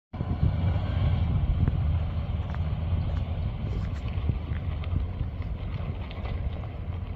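1990 Dodge D150 pickup with a freshly rebuilt engine, under way on the road: a steady low engine drone mixed with road and wind noise, with a few light clicks and rattles.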